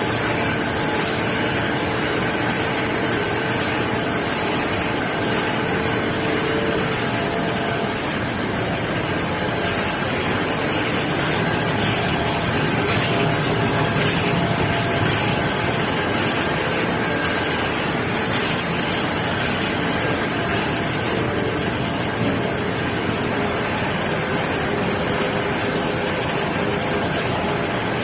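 Automatic cardboard laminating machine running steadily, a dense mechanical clatter and hum with a strong high hiss over it.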